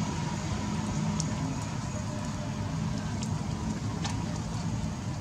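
Steady low rumbling background noise with a few faint, light clicks.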